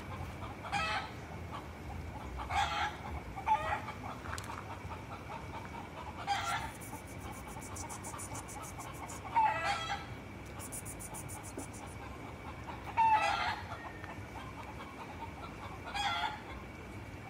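Chickens calling: seven short calls of about half a second each, spaced one to three seconds apart, over a faint steady high tone. Fast faint high ticking comes in twice near the middle.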